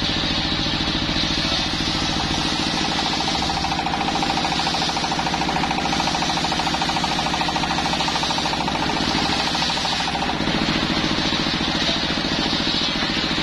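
Stationary single-cylinder diesel engine running steadily with a fast, even chug, driving a belt-driven bench circular saw as it rips a teak log lengthwise. A steady whine from the cut stops about ten seconds in as the slab comes free.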